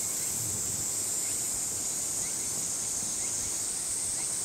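Steady, high-pitched droning of a summer insect chorus, with a few faint, short rising chirps now and then.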